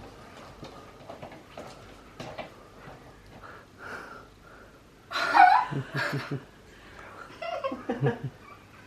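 People squealing, gasping and laughing in excitement. After a few seconds of quiet, a sudden high cry with quick laughter follows, then a few more short laughs near the end.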